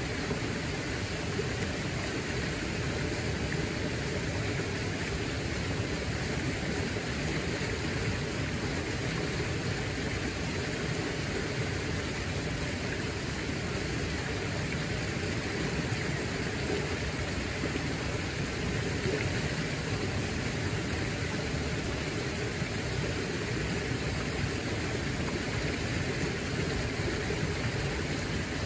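Fast-flowing stream rushing over rocks: a steady, even rush of water that does not change.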